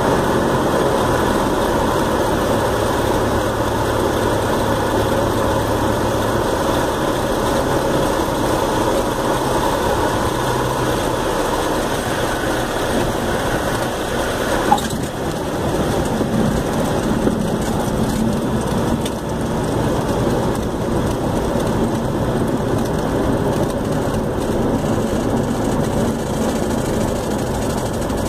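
Cessna 172's piston engine and propeller heard inside the cockpit, a steady drone with rushing air noise. About halfway through there is a brief sharp knock and the sound changes, the higher noise falling away, with a second smaller knock a couple of seconds later.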